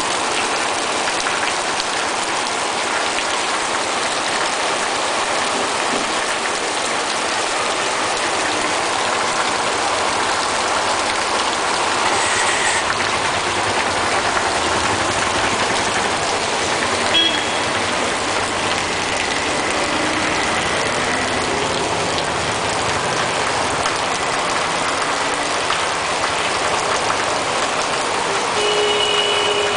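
Heavy monsoon rain pouring down onto open ground, a steady, unbroken hiss.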